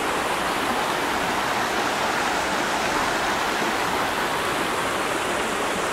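Shallow, rocky river flowing over stones, a steady rushing of water.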